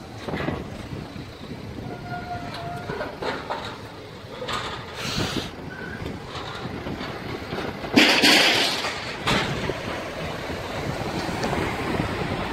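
Road traffic crossing a level crossing: cars driving over the rails, with a louder pass about eight seconds in.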